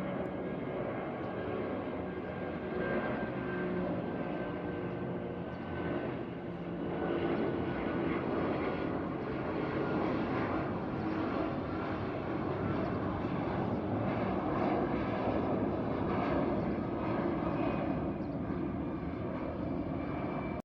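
Airliner engines running: a steady roar with a thin whine that slowly falls in pitch.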